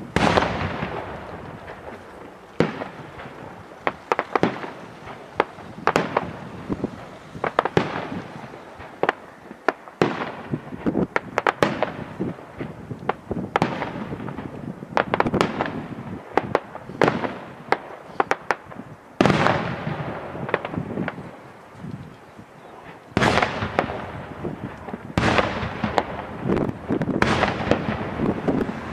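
Daytime fireworks display: aerial shells bursting in the sky in a rapid, irregular string of sharp bangs and crackling reports. The bursts pile up into dense, loud volleys about two-thirds of the way in and again near the end.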